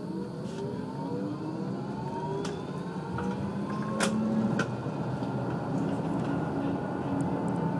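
Tram's electric traction drive whining, rising steadily in pitch as the tram pulls away from a stop and gathers speed, over running noise. A couple of sharp clicks come about four seconds in.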